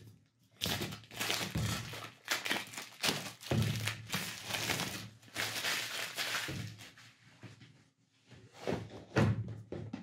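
Packaging on a phone's cardboard retail box being unwrapped: a run of crinkling, tearing rustles for several seconds, then a couple of dull knocks near the end as the box is handled against a wooden table.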